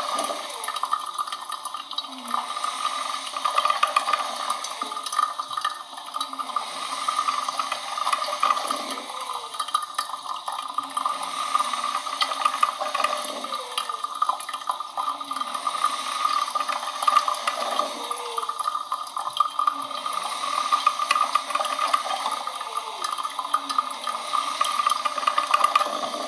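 Coffee machine running: a steady watery hiss, with a short low falling sound coming back every couple of seconds.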